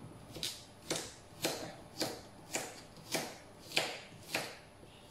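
Kitchen knife slicing a raw carrot into rounds on a cutting board: a crisp cut and knock of the blade on the board, about eight strokes at a steady pace of roughly two a second.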